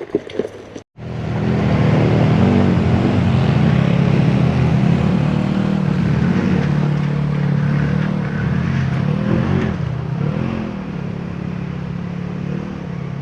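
Off-road vehicle engine running under load, its revs rising and falling a few times. It begins abruptly about a second in, after a short burst of clicks and knocks.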